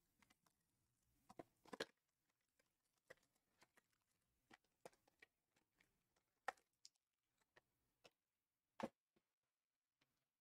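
Near silence with faint, scattered clicks and crinkles of trading-card boxes and foil packs being handled, the loudest one near the end.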